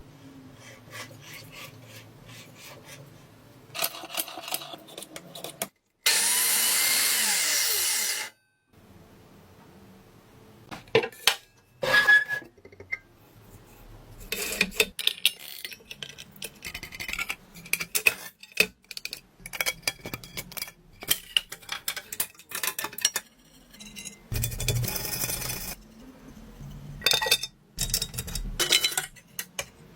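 Workshop sounds of tools being worked on: a run of knocks, clicks and scraping, with a power tool running loudly for about two seconds around six seconds in, its pitch dropping as it stops.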